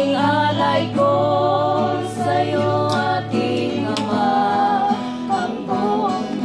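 A woman singing a melodic song while playing an acoustic guitar.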